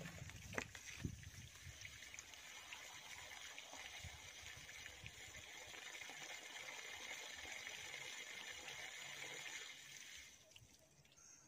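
Garden hose spraying water, a faint steady hiss that stops near the end.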